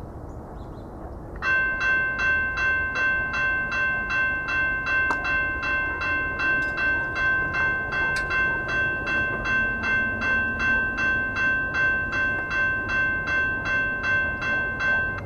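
Railroad grade crossing warning bell starts about a second and a half in and rings steadily at about two strikes a second while the crossing gates lower, signalling an approaching train.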